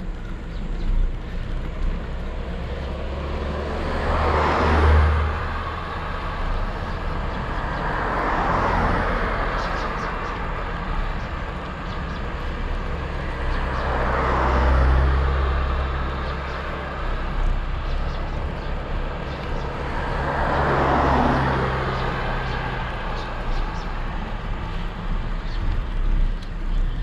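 Road noise heard from a moving bicycle: wind rumbling on an action camera's microphone, while four motor vehicles pass one after another, each swelling up and fading away, at about four, nine, fifteen and twenty-one seconds in.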